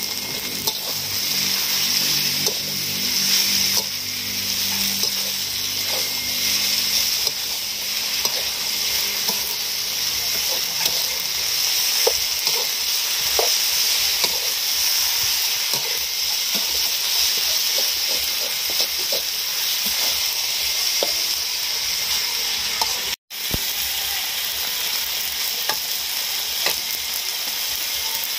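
Glass noodles and cabbage sizzling in an aluminium wok with a steady hiss, while a metal spatula stirs and scrapes them, clinking against the pan again and again.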